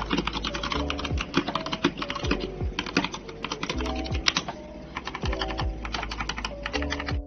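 Fast typing on a GK68 hot-swappable mechanical keyboard: a dense run of key clicks, over background music.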